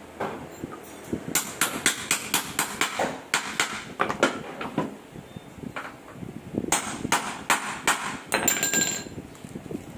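Hammer striking a propeller-shaft universal joint set on a wooden block: two runs of quick metal blows, about three a second, with a short pause between them and a brief metallic ringing near the end.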